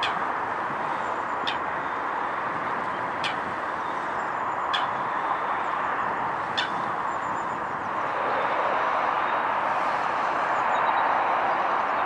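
Steady rushing background noise, rising a little about eight seconds in. Over it, a small bird gives a short sharp call about every second and a half for the first seven seconds or so.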